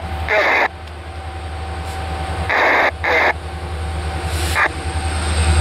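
Approaching freight train's diesel locomotives, led by an EMD SD60E, with a steady low rumble. Several brief louder bursts of noise come about half a second in, around two and a half to three seconds in, and again near the end.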